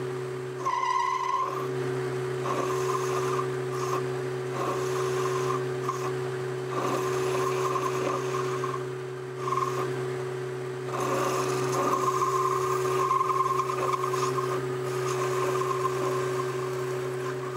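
Boxford metal lathe running with a steady motor hum while the tool of a radius turning attachment cuts a ball end on aluminium bar. The cut sounds as a high whine that comes and goes in stretches of a second or more, with a sharper ringing squeal about a second in.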